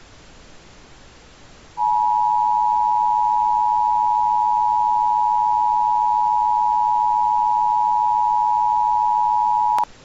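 Emergency Broadcast System Attention Signal: a steady two-tone alarm tone that starts about two seconds in, holds for about eight seconds and cuts off suddenly with a click near the end, over a faint steady hiss.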